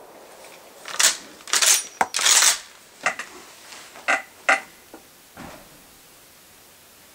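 Metallic clacks and clinks of a Mosin-Nagant M91/30 rifle's bolt being worked between shots: a quick cluster of sharp clacks about a second in, then a few single ringing clinks over the next few seconds.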